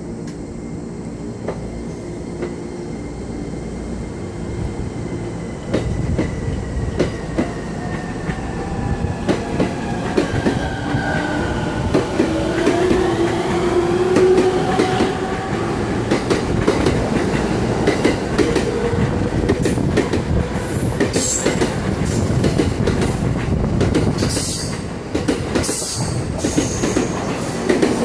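JR East E231-1000 series electric multiple unit pulling away and accelerating. The electric whine of its inverter-driven traction motors glides in pitch through the first half, then gives way to dense running noise and the clacking of wheels over rail joints as it picks up speed.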